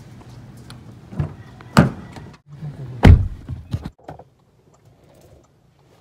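Car door handle pulled and the door opened with a couple of clunks, then the door shut with a loud thunk about three seconds in and a few smaller clicks after it. The steady background then drops away to the quiet of the closed car cabin.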